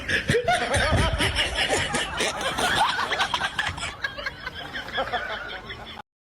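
Several people laughing and chuckling, with clicks and knocks mixed in, cut off abruptly near the end.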